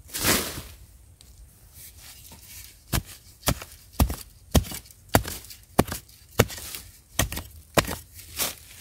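A metal digging blade chopping into loose soil: a short scrape near the start, then about ten sharp strikes, roughly two a second, from about three seconds in.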